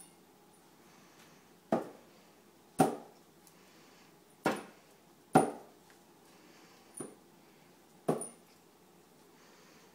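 A ball knocking against a refrigerator six times at uneven intervals, each hit a short, sharp knock.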